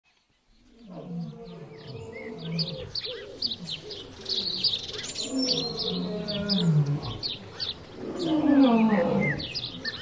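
Many birds chirping and calling, over deeper drawn-out calls that fall in pitch, the loudest of them a little before the end.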